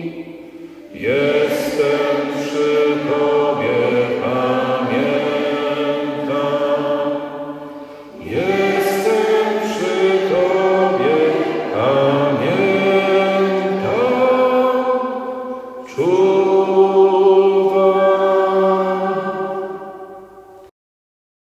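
Several voices singing a slow sacred chant in three long phrases, each about seven seconds, with the notes gliding into place. It breaks off abruptly shortly before the end.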